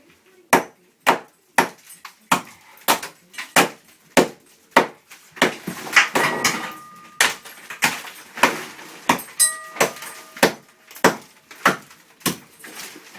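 Steady hammer blows, about one every 0.6 s and some with a brief ring, chipping out the wall around the shower valve to enlarge the opening.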